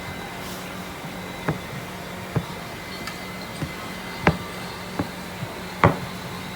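About six sharp knocks on a work surface, unevenly spaced about a second apart, as dough is worked by hand. A steady low hum runs underneath.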